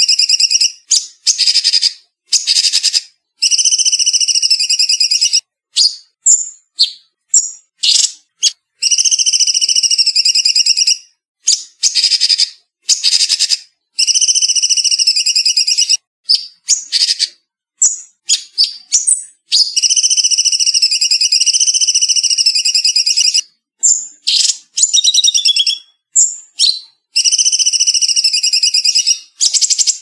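Cucak cungkok songbird singing fast, tight trilled phrases of one to two seconds each, repeated with short breaks between them. The recording is clean, with no background noise between phrases.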